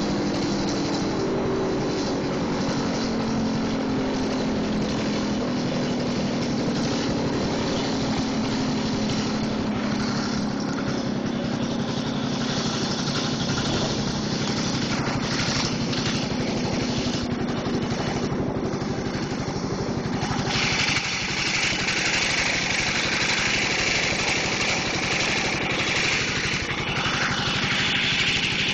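Gas-engine-driven Federal Signal 3T22 tornado siren running, its engine turning the spinning chopper. Its tones slide slowly down over the first dozen seconds, then a loud high, steady sound cuts in abruptly about two-thirds of the way through.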